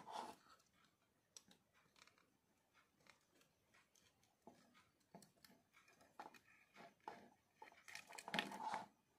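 Faint clicks and rustles of jumper wires being pushed onto an Arduino Uno's header pins and the board being handled. A louder cluster of handling noise comes near the end.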